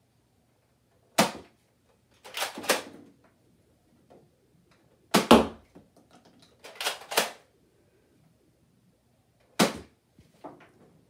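Nerf Fortnite SP-L spring blaster with its silencer attachment firing three darts, one sharp plastic clack about every four seconds. Between shots comes a pair of softer clacks as the blaster is pumped back and pushed forward to re-cock.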